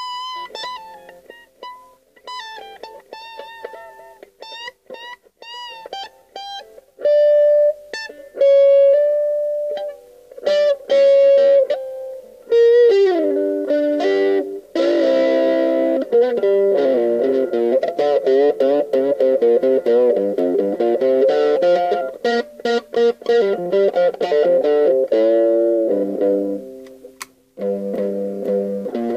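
Electric guitar played with an overdriven 'brown sound' tone: spaced single notes and held notes with wavering pitch, a note bent down partway through, then a fast, dense boogie riff for the second half, pausing briefly near the end before starting again.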